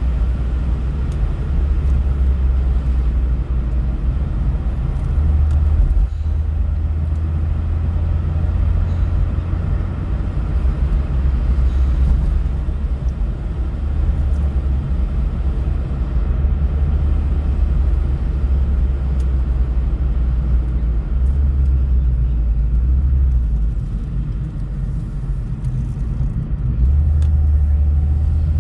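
A car driving on a road: a steady low engine and road rumble whose pitch shifts up and down a few times as the speed changes.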